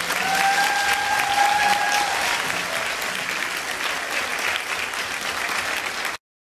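Audience applauding after a choir's song, with one long high held note over the applause in the first two seconds. The applause cuts off suddenly about six seconds in.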